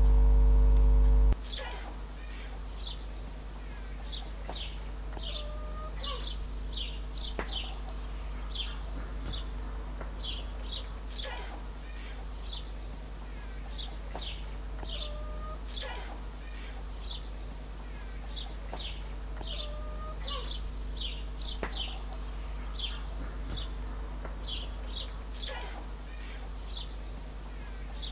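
Small birds chirping: many short, quick, high chirps repeated irregularly over a steady low hum, with a few faint clicks. A loud steady humming tone cuts off abruptly about a second in.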